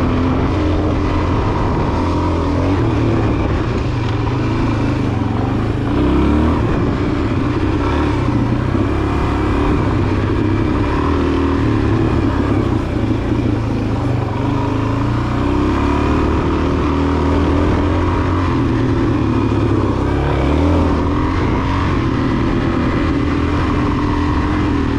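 Suzuki DR-Z400 dual-sport motorcycle's single-cylinder four-stroke engine running while riding, its note rising and falling with the throttle.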